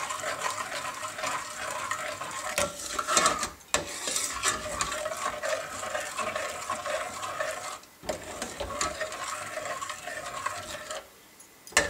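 Steel ladle stirring and scraping around a stainless steel pot of thick rabri (reduced milk), with small clinks against the pot, as freshly added sugar is stirred in. The stirring pauses briefly twice, eases off near the end, then a sharp clack of the ladle on the pot.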